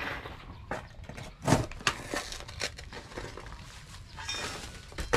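Small spade digging and scraping into dry, stony soil, with irregular knocks and crunches as the blade strikes stones and gravel; the loudest strike comes about one and a half seconds in.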